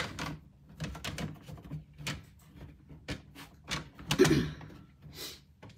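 Hard plastic graded-card slabs clicking and clacking as they are handled and set down: a string of short knocks, with the loudest clack about four seconds in.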